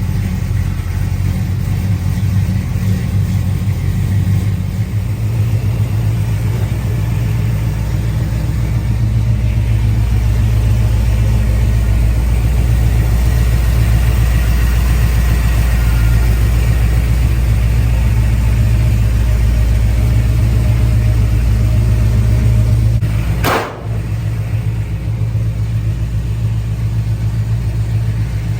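A car engine running steadily at idle, with a deep, even hum. It grows slightly louder partway through and breaks off for a moment with a click about three-quarters of the way in.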